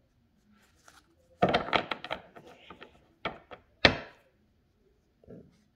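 Several knocks and thunks on a wooden surface: a quick cluster about a second and a half in, then two single knocks, the second one the loudest, and a faint one near the end.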